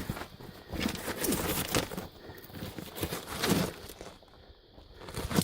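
Irregular scuffing and crunching of a person moving over loose rock and gravel, with clothing rustling; it goes quiet for about a second near the end, then picks up again.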